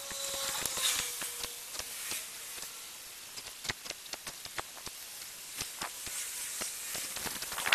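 Water in a small tank fizzing as Sera Pond Algokill reacts: a steady hiss with many small irregular pops and clicks of fine bubbles.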